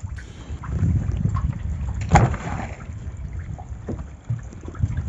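Low, uneven rumble of wind and water noise around an open wooden fishing boat, with one sharp knock about two seconds in.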